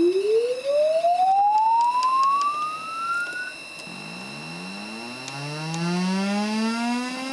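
A test tone played loud through a 15-watt speaker, sweeping smoothly up in pitch from a low hum to a high whistle over about three and a half seconds. About four seconds in, a second rising sweep starts low again, buzzier with overtones. A faint steady high whine runs underneath.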